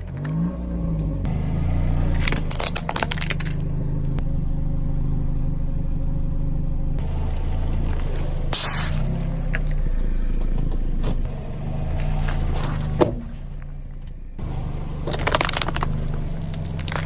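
A car engine running at low speed while its tyres roll over and crush objects, with bursts of crackling and crunching several times.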